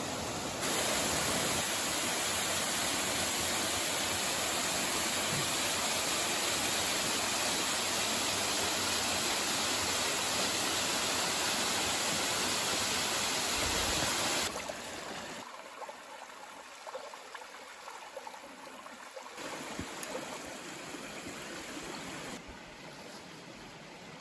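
Small mountain waterfall pouring over rocks into a pool, a steady rush of water. About two-thirds of the way through, it drops to the quieter, uneven flow of a small stream.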